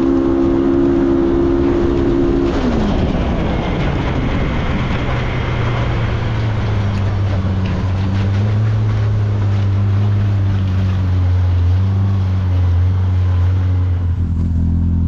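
Side-by-side UTV engine running at high revs, then dropping off in a falling glide about two and a half seconds in and settling to a lower, steady drone as the machine slows, with tyre and ground noise throughout.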